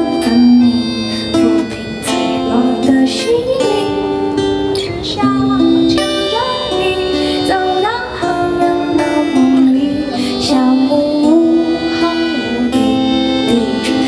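Live pop song: a woman singing into a microphone over accordion and acoustic guitar accompaniment.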